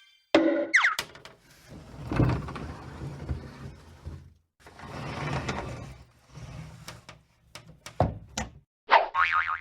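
A string of separate cartoon sound effects played one after another: a quick whistle-like glide in pitch near the start, two longer noisy whooshing stretches, a run of sharp clicks, and a short pitched tone near the end.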